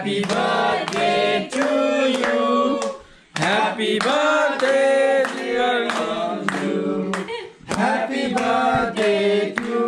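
A group of people singing together in long held notes, with short breaks between phrases about three seconds in and again near the end.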